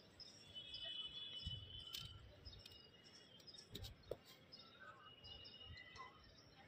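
Faint outdoor ambience, near silence, with scattered high chirps and a few soft low thumps.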